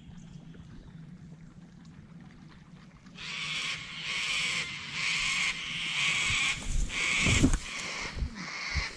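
Tall reeds and grass rustling in regular swishes, about one and a half a second, as someone pushes through them, starting about three seconds in, with a heavier thump near the end.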